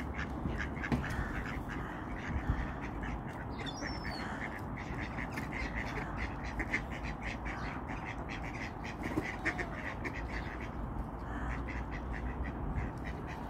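Mallard ducks quacking over and over, a flock calling together while being fed, with one brief higher bird call about four seconds in.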